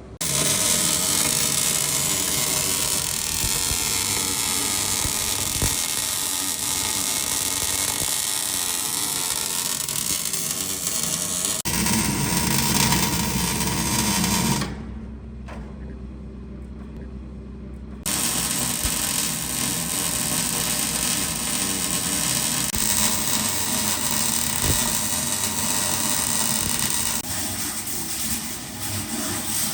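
Electric arc welding a steel seam: a steady, loud crackling buzz, with a quieter pause about halfway through before the welding resumes.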